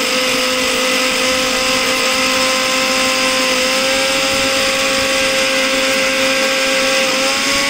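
Electric mixer-grinder running steadily, its small stainless-steel dry-grinding jar milling whole spices such as fenugreek, cumin, fennel, coriander and dried red chillies into masala powder. A steady motor whine sits over the hiss of the grinding spices.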